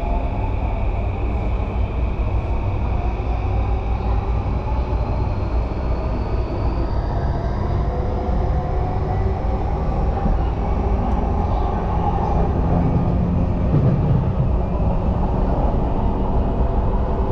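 Yamanote Line electric commuter train running, heard from inside the carriage: a steady rumble of wheels on rail, with electric motor whines that rise slowly in pitch as the train picks up speed. A thin high tone drops out about a third of the way through.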